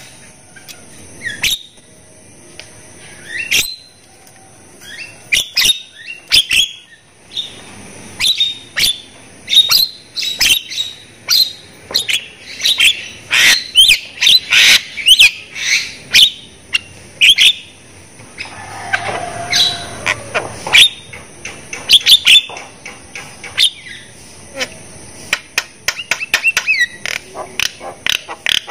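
Javan myna (jalak kebo) singing: a varied run of short sharp chattering calls, quick whistles and squawks, densest in the middle, with a steady faint high-pitched hiss underneath.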